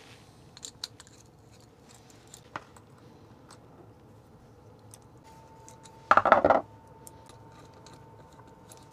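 Small metal clicks and taps from a brass battery terminal clamp being handled and screwed together with a screwdriver. A brief louder sound comes a little after six seconds in.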